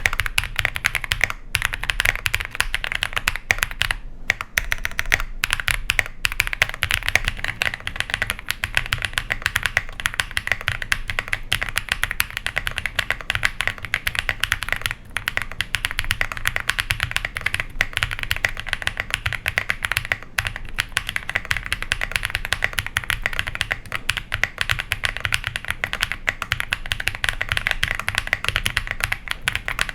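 Continuous fast typing on an iris65 custom mechanical keyboard with BSUN switches, a polycarbonate plate and GMK doubleshot ABS keycaps: a dense stream of key clacks with a few short pauses.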